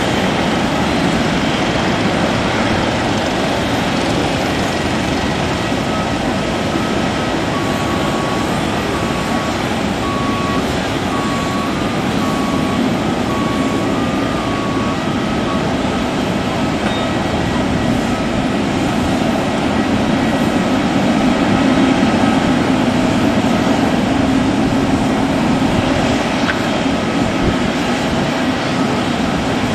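Boeing 777-300ER's GE90 turbofan engines running at taxi power: a steady jet rumble and hiss that grows a little louder about two-thirds of the way through. In the middle, a ground vehicle's reversing alarm beeps about once a second for several seconds.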